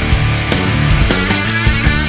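Rock music with drums playing as the soundtrack.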